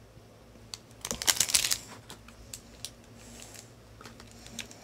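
Light clicking and rattling: a quick, dense cluster of sharp clicks about a second in, then scattered single ticks.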